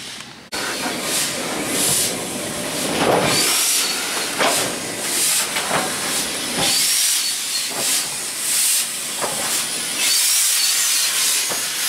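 Steam locomotive hissing steam, with loud bursts of steam repeating roughly once a second.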